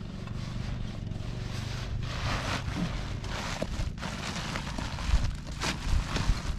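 Wind buffeting the microphone, a steady low rumble, with a couple of brief bursts of rustling about two seconds in and near the end.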